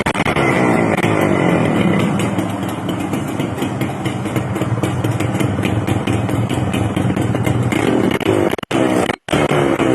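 Yamaha YB 100 motorcycle's two-stroke single-cylinder engine being revved. The revs fall away in the first couple of seconds, hold steady at a fast idle, then rise again near the end, with two brief dropouts in the sound shortly before the end.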